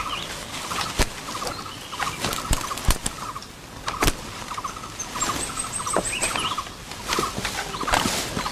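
Jungle ambience: short pulsing animal calls repeat about once a second, with a high buzzing insect call for about a second in the middle, a few brief chirps, and scattered sharp snaps and clicks.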